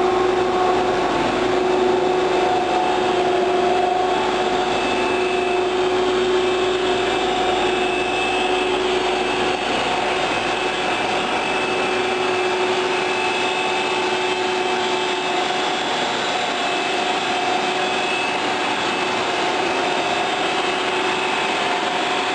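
HDPE pipe extrusion line running: a steady mechanical hum with two held whining tones over a rushing noise from the line's motors and pumps.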